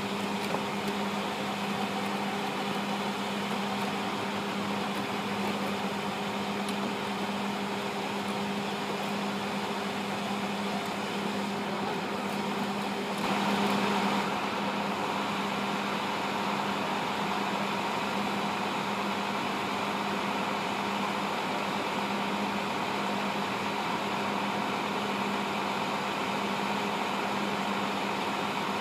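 Steady mechanical hum of running machinery, a constant low drone with a faint hiss over it, swelling briefly louder about thirteen seconds in.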